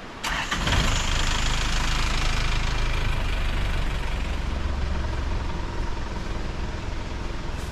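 A motor vehicle's engine running, cutting in suddenly just after the start with a hiss that fades over the first few seconds.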